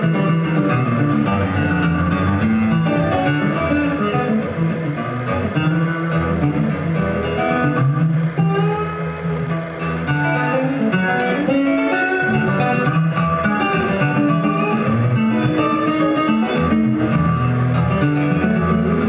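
Solo acoustic guitar played fingerstyle: steady low bass notes under a quick picked melody.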